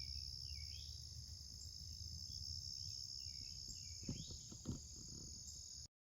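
Steady, high-pitched evening insect chorus in the woods, with a few faint chirps over it and two soft knocks about four seconds in; the sound cuts off suddenly near the end.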